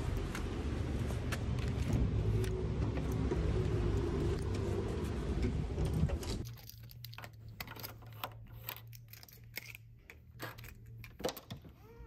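Footsteps and handling over a dense, low outdoor rumble. About six seconds in this gives way to a quieter interior with a low hum, scattered sharp clicks and a jingle of keys at a door lock.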